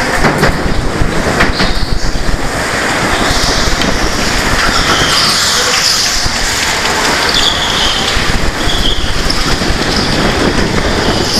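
Go-kart running on an indoor track, heard from on board: steady motor and road noise, with short tyre squeals through the corners.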